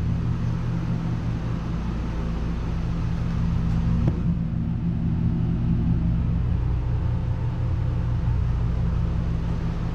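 Air conditioner running with a steady low hum, with a single light knock about four seconds in.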